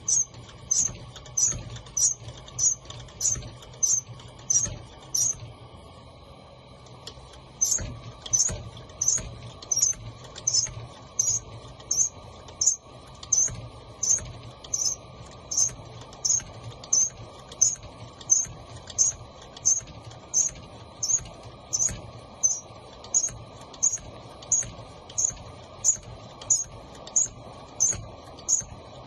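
Kerosene pressure lantern's hand pump being worked, giving short high squeaks about two a second over a low steady hum, with a break of about two seconds a little after five seconds in.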